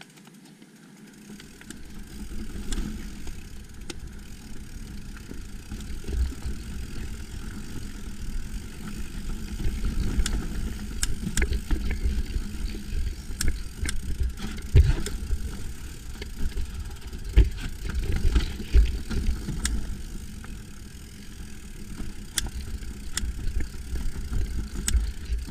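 Mountain bike ridden over a rocky trail, heard from a camera on the bike or rider: an uneven low rumble of wind buffeting the microphone and tyres rolling over rock, with many sharp clicks and rattles from the bike as it jolts over the stones.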